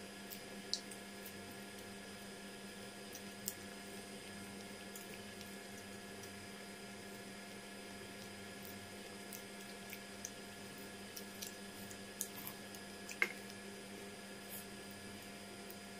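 Quiet hand-eating sounds: soft squishes and a few scattered faint clicks of fingers picking fish and rice off a plate, over a steady low hum.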